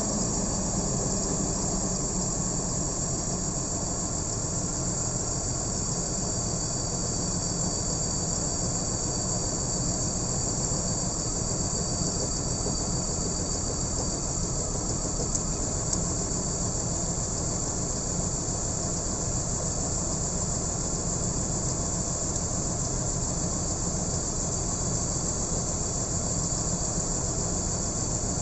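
BMW M54B30 straight-six engine idling steadily, with a steady high whine over it.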